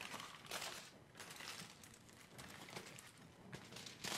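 Aluminum foil crinkling in a series of short, irregular rustles as it is folded and pressed over the edges of a board.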